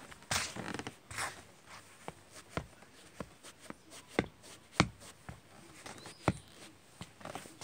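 Nike TN trainers shuffling and tapping on stone terrace tiles. A few scraping scuffs come in the first second, then single sharp taps and creaks every half second to second, the loudest near the middle.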